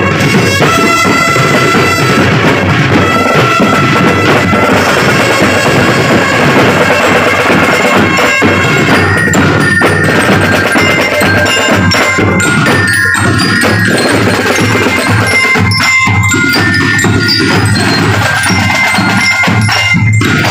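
Marching drum and bugle corps playing loudly and without a break: bass drums and other drums beating under a bright, bell-like melody from mallet percussion.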